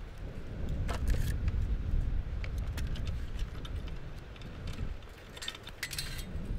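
Loose steel saw chain on a Stihl chainsaw's bar, its links clinking and jingling as it is handled and fitted, in two clusters about a second in and near the end. A low rumble runs underneath.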